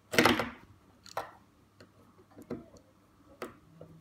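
Screwdriver working the small screws that hold a MIP toy robot's circuit boards to its plastic motor housing: a louder scraping knock at the start, then single sharp clicks of the tip on the screw heads and plastic, about one a second.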